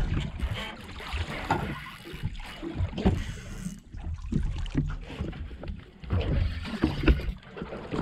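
Small boat on the water: wind and water noise with irregular knocks and thumps against the hull.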